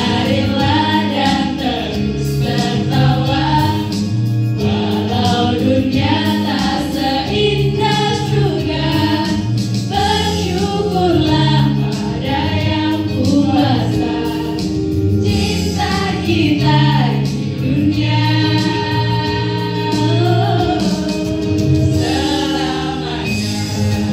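A song sung by a group of voices together, over an instrumental backing with a steady low bass line.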